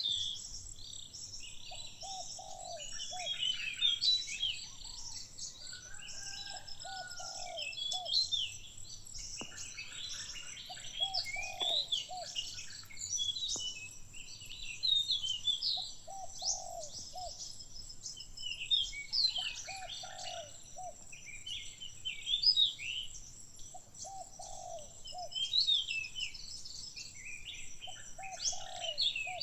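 Several birds chirping and singing over one another, with a lower call of three or four quick notes repeating every three to four seconds.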